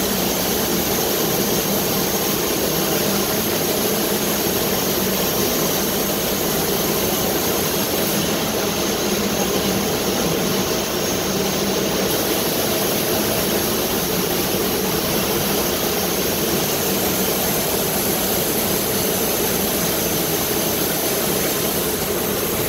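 Amada FO CO2 laser cutting machine running while it cuts steel plate: a loud, steady, even rush of machine noise with faint steady hum tones underneath.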